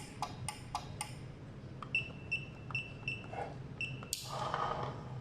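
A JP-LT universal garage door keypad beeps five times, short high beeps about 0.4 s apart, as the keys of its PIN are pressed. A short rushing noise starts abruptly about four seconds in and lasts about a second.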